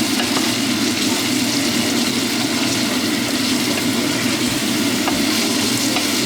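Steady sizzling of beans frying with onion and garlic in hot oil in a pot, with a few faint crackles.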